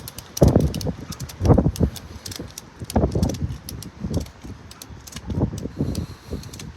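Ratchet strap being cranked tight in several strokes, drawing a floor jack down onto a tire to break the bead. Each stroke gives a burst of low noise, and the ratchet clicks sharply throughout.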